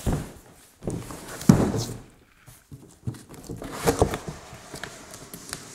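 A large cardboard box being turned and shifted on a tabletop: scraping cardboard and a few dull thumps, the loudest about one and a half seconds in, more near four seconds.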